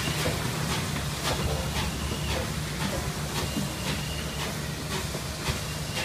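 Norfolk & Western 611, a J-class 4-8-4 steam locomotive, working slowly under steam with a steady hiss and a regular beat about twice a second.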